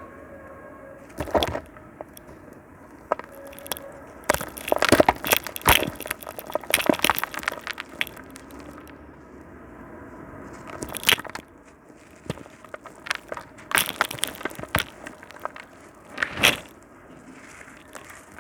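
Crumbly concrete with sand being crushed, giving brittle crunching and crackling in irregular bouts. A dense run of crunches comes a few seconds in, followed by scattered single sharp cracks.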